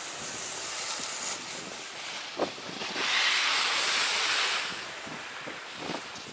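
Skis skidding and scraping across packed snow: a steady hiss that swells into a loud spray of snow about three seconds in and lasts over a second, with wind noise on the microphone and a single knock just before the swell.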